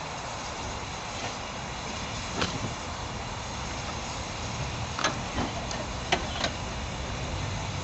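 Steady low rumble of a vehicle, with a handful of short sharp clicks, the loudest about five and six seconds in.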